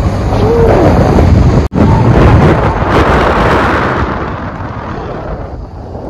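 Heavy wind buffeting the microphone of a phone held up through the sunroof of a moving car, a loud, rough rumbling rush. It cuts out for an instant about a second and a half in, then carries on and fades over the last couple of seconds.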